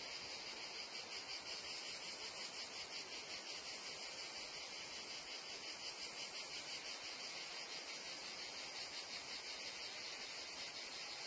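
Meadow insect chorus of crickets and cicadas: a steady, dense, high-pitched chirring with a fast even pulse, running on without a break.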